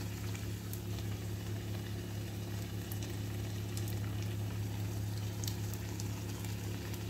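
Puris deep-frying in very hot oil in a kadhai: a steady sizzle with a few faint crackles, over a steady low hum. The oil is hot enough that the puris puff up well.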